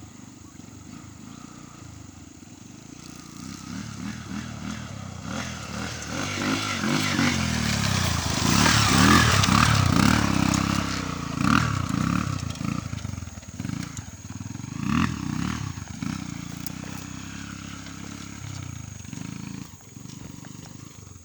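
An engine revving up and down over and over, growing louder to its peak about nine seconds in and easing off after a second surge near fifteen seconds.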